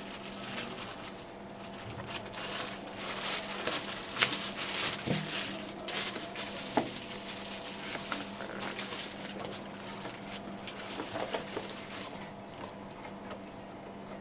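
Packaging and small parts of an action camera being handled during unboxing: irregular rustling and crinkling with scattered sharp clicks and a few light knocks, over a steady low hum.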